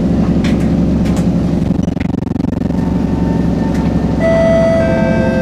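Steady low hum of an MRT train car's equipment, with a few light clicks. About four seconds in, several steady whining tones from the traction equipment come in as the train starts to move off.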